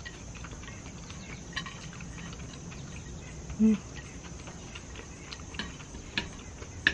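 Steady high chorus of insects outdoors, with light clicks of chopsticks against ceramic plates. Near the middle there is one short, low voiced "mm" from one of the diners.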